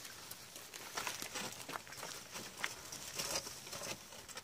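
A litter of puppies crowded together eating scattered food on gravelly ground: a busy jumble of small clicks, crackles and crinkling from chewing and scrabbling.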